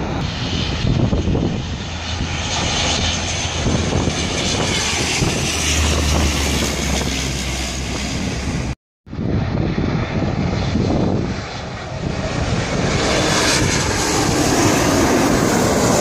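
Jet airliner engine noise, a steady roar with a deep low rumble; it cuts out for an instant about nine seconds in. It then builds again as an Air Canada Embraer regional jet's twin turbofans pass low overhead.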